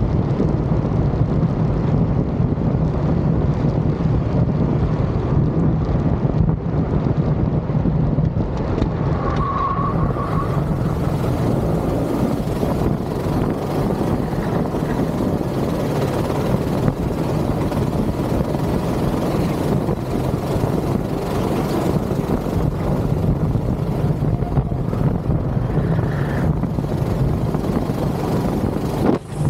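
Go-kart engine running at a nearly steady pitch, with heavy wind noise on the microphone.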